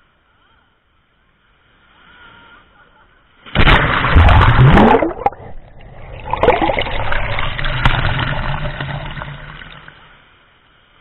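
Ocean wash of a breaking wave surging over a camera sitting at the waterline: a sudden loud rush and splash of water about three and a half seconds in, a brief dip, then a second long wash that fades away.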